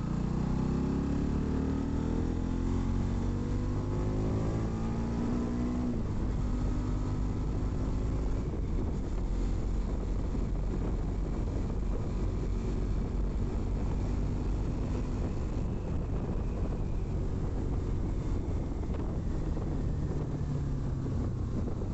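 Bajaj Pulsar NS200's single-cylinder engine pulling hard under open throttle, its pitch climbing for about six seconds as the motorcycle accelerates. After that it cruises at speed, the engine mostly covered by wind and road noise.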